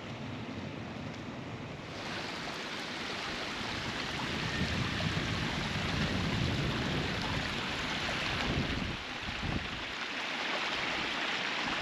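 Rushing water running steadily, growing louder about two seconds in, with wind buffeting the microphone.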